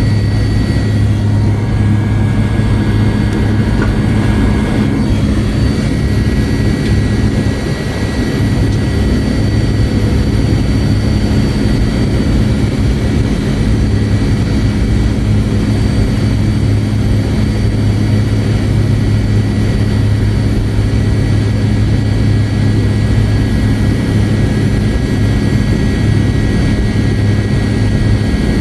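Inside the cabin of a McDonnell Douglas MD-88, its rear-mounted Pratt & Whitney JT8D turbofan runs at taxi power: a steady low hum with a thin high whine over it. The plane is taxiing on one engine, the left.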